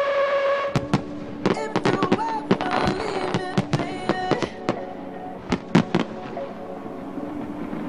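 Music with held tones under a run of sharp, irregular clicks and pops.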